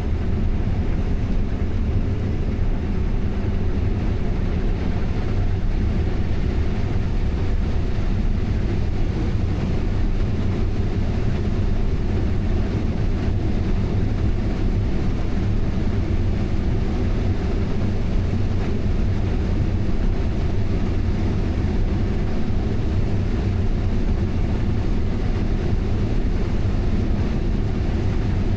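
Combine harvester running steadily while harvesting corn: a constant low drone with a steady hum that never changes.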